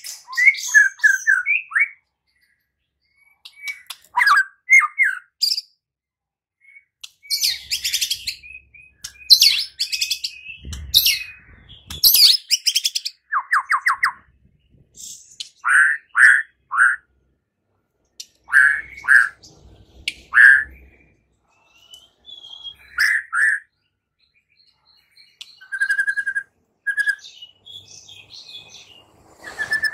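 White-rumped shama (murai batu) singing: short phrases of clear whistles, rapid trills and high scratchy notes, broken by pauses of one to two seconds.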